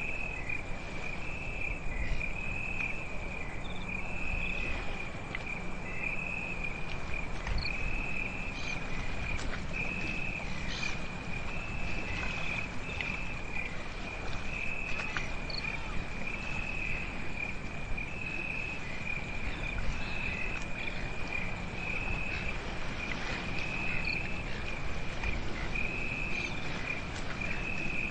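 Night insects chirping: a high trill comes in short bursts a second or so apart and keeps repeating, over a steady low rumble.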